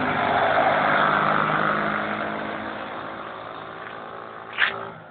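Quad bike engine running hard as it rides away, its sound fading steadily over the last few seconds. A single sharp snap cuts in briefly near the end.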